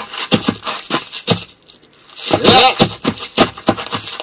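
Fight-scene sound effects played back from a film mix: a rapid series of sharp blows from a pipe, a short pause, then a pained cry and more hits.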